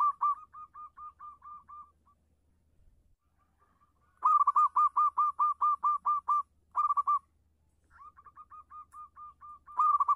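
Zebra dove (perkutut) singing: runs of rapid staccato cooing notes, about five a second, in three bursts with a lull of about two seconds after the first. The second burst is the loudest, and the last builds from soft to loud near the end.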